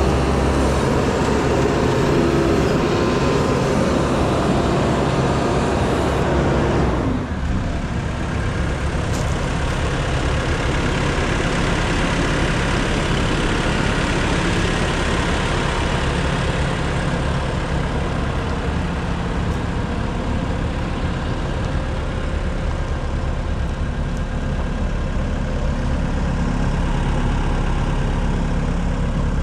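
2017 Takeuchi TS80VS skid steer's diesel engine running steadily. About seven seconds in, a higher-pitched layer of the sound drops away and the engine carries on at a lower, steadier note.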